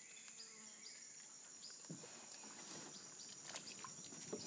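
Quiet rainforest ambience: a steady high-pitched insect drone, with a few faint clicks and knocks.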